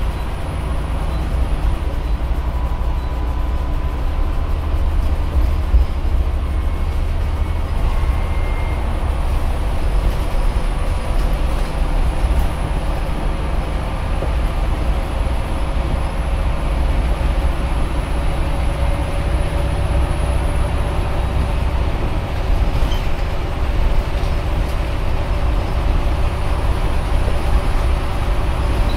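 Scania CN94UB OmniCity single-deck bus heard from inside the saloon while under way: a steady low engine drone and road noise, with a faint high whine throughout.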